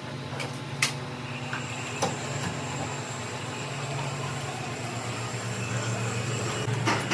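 Workshop machinery running with a steady low hum and a faint high whine, with a few sharp metallic clicks.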